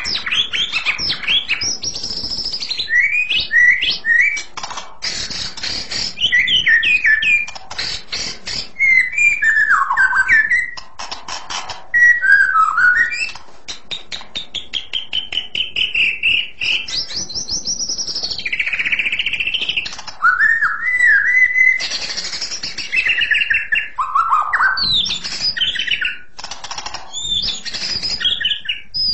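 White-rumped shama (murai batu) singing continuously: a long, varied song of clear, shrill whistled phrases and sweeping glides, broken up by several runs of rapid rattling notes.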